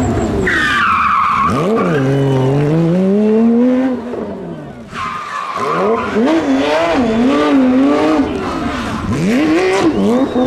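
Rally car engine revving hard, its pitch rising and falling through gear changes, with the revs dropping off sharply about four seconds in before it pulls again. Tyre squeal joins it early on as the car corners.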